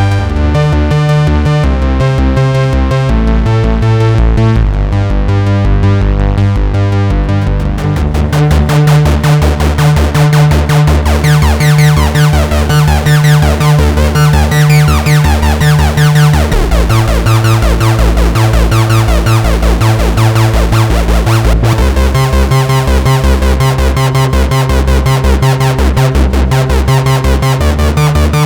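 Sequential Circuits Pro-One monophonic analog synthesizer playing a fast, repeating sequenced bass line. About eight seconds in, the tone opens up from dull to bright and buzzy, and for several seconds after that sweeping pitch glides run through the upper part of the sound.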